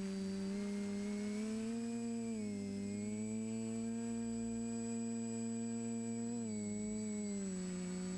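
TBS Discovery Pro quadcopter's electric motors and propellers humming, heard from its onboard camera, with a steady high whine above it. The pitch steps up about two and a half seconds in and drops back about six and a half seconds in as the throttle changes.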